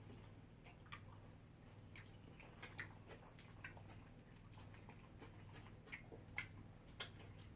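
Quiet eating: faint chewing with scattered small wet clicks and smacks of the mouth, a few slightly louder than the rest, over a steady low hum.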